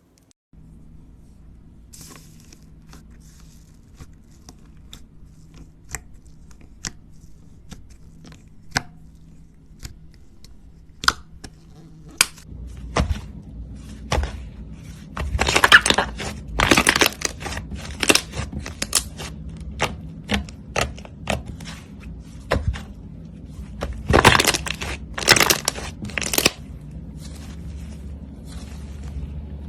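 Slime being pressed and pulled, giving sharp pops and crackles. These are sparse at first, then come thicker and louder, with bursts of dense crackling about halfway through and again near the end.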